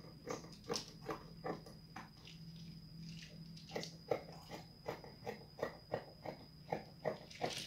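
Scissors snipping through lace fabric in a steady run of short cuts, about three snips a second.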